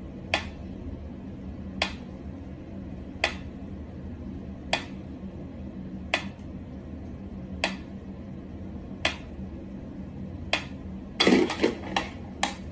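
Mechanical pendulum metronome ticking slowly and evenly, one sharp tick about every second and a half. Near the end a brief flurry of louder knocks and rustling breaks in.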